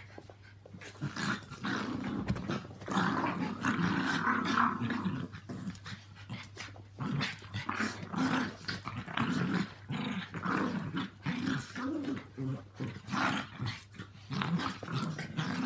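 Small dogs, Yorkshire terriers and a Maltese, growling while they play-fight. The growls come in short repeated bursts, with a longer, louder stretch about three seconds in. This is rough play, not aggression.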